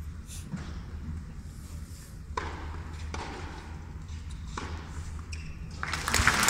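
Tennis ball struck back and forth by rackets in a rally, a few sharp hits a second or two apart echoing in an indoor arena, then the crowd breaks into applause near the end.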